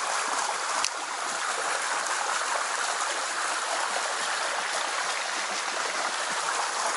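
A shallow forest creek running steadily over a riffle, a constant rushing babble, with a single sharp click about a second in.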